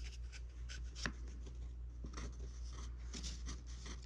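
Light scratching, rubbing and small ticking strokes as a thin wooden shim is handled and traced on a wooden workbench, over a low steady hum.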